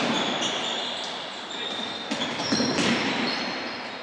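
Sports shoes squeaking and footsteps thudding on an indoor court floor during play, echoing in the hall, with several short high squeaks and a few sharper impacts about two to three seconds in.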